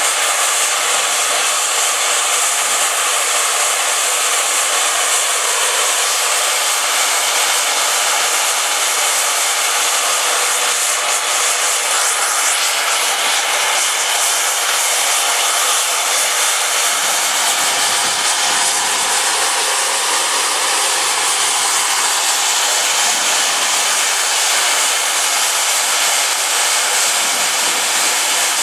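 Twin safety valves of an LSWR M7 0-4-4 tank steam locomotive blowing off: a loud, steady hiss of escaping steam, the sign that the boiler has reached full working pressure.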